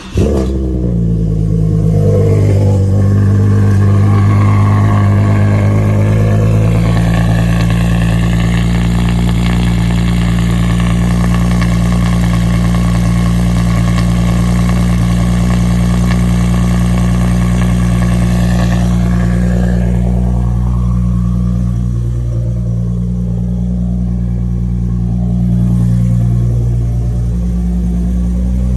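Nissan VR30DDTT twin-turbo V6, swapped into an Infiniti G37, on a cold start. It fires up and runs at a raised cold-start idle, then settles to a lower, steadier idle about twenty seconds in.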